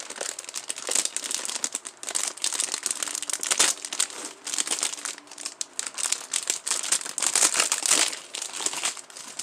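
Clear plastic candy packaging crinkling and crackling as it is handled and unwrapped, in an irregular run of crackles with short pauses.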